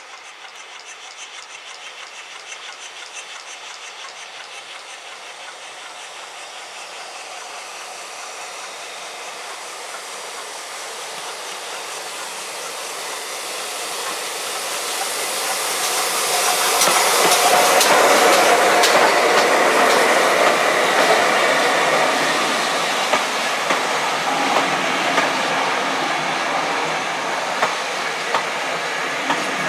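GWR Hall-class 4-6-0 steam locomotive 4930 Hagley Hall approaching with a train and passing close by, its sound growing steadily louder until it goes past about two-thirds of the way through. Its coaches follow, wheels clicking over the rail joints in sharp ticks near the end.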